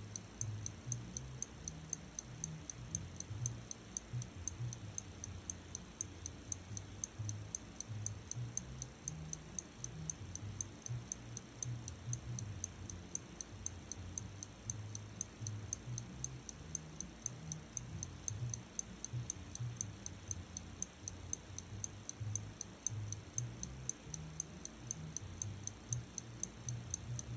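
Pocket watch ticking rapidly and evenly, with a low bass rumble underneath.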